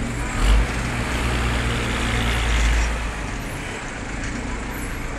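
A city bus drives past close by, its engine rumble loudest for the first three seconds and then easing off, over a steady noise of street traffic. A short thump sounds about half a second in.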